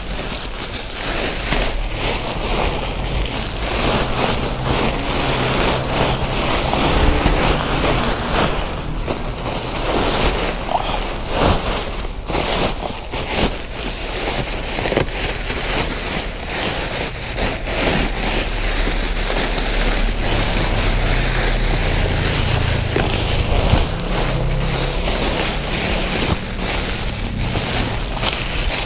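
Plastic sacks rustling and crinkling as they are handled: a woven plastic sack and black plastic bags pulled about and rummaged through, a steady run of crackles.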